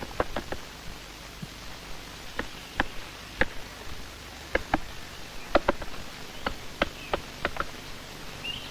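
Spotted woodpecker knocking its bill against wood: sharp single taps at irregular spacing, some in quick runs of two or three. It is sounding out the branch for a hollow spot, such as a beetle-grub tunnel.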